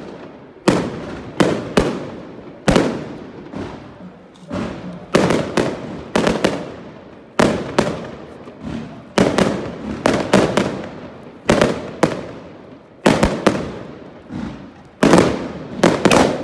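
Firecrackers going off one after another, about one or two sharp bangs a second at an uneven pace, each trailing off briefly, with a bright burst near the end.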